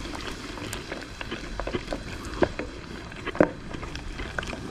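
Crumbed calamari rings deep-frying in a saucepan of hot oil: a steady sizzle with a scatter of small crackling pops. Two louder clicks of metal tongs against the pan come about halfway through.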